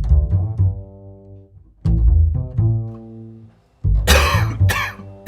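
Three low string-instrument notes, each starting sharply and fading away over a second or so. About four seconds in, a harsh cough cuts across them.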